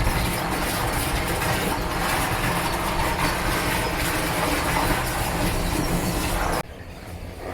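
Kärcher pressure washer running and spraying water in a steady hiss over a low motor hum, cutting off suddenly near the end.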